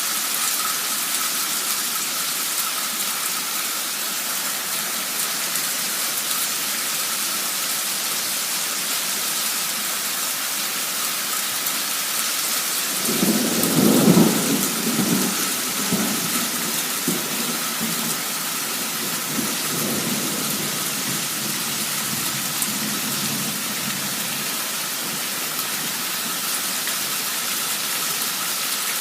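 Heavy downpour hissing steadily, with a roll of thunder about halfway through that rumbles on and fades over several seconds.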